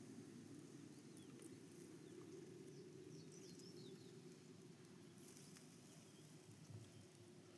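Near silence: faint outdoor ambience with a steady low hum, and a few faint high bird chirps and clicks about halfway through.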